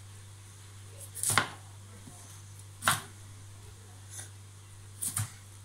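Kitchen knife chopping broccoli on a cutting board: a few slow, separate chops, one of them a quick double.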